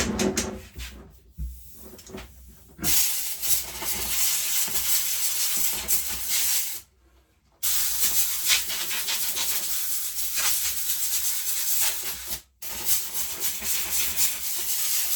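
Compressed air blown through a lawnmower air filter: three long hissing blasts, each several seconds, with brief breaks between.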